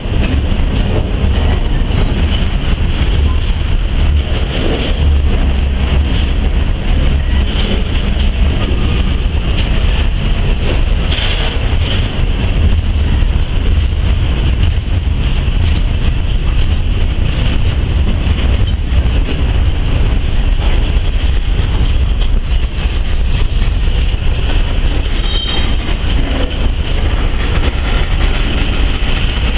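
Freight train cars (gondolas and covered hoppers) rolling past close by. A steady rumble of wheels on the rails runs throughout, with a high wheel squeal over it.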